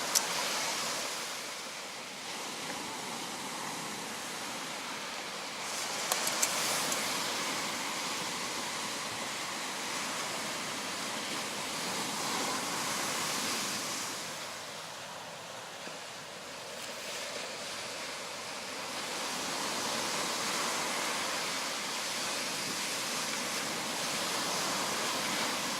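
Sea waves washing onto the shore, the surf swelling and fading every five to seven seconds. A few short clicks come about six seconds in.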